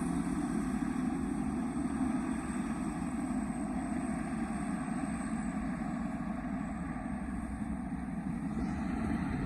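A vehicle's diesel engine, a 195 single-cylinder type with a turbo, running steadily.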